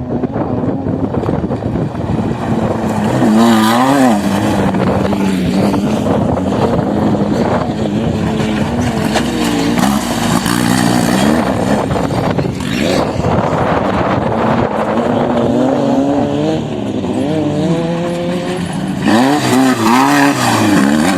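Engine of an off-road vehicle running under load, its pitch repeatedly climbing and dropping as it revs, with the hardest revs about three seconds in and again near the end.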